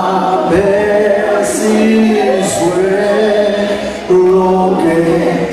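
A group of voices singing a slow a cappella hymn in isiXhosa, with long held notes.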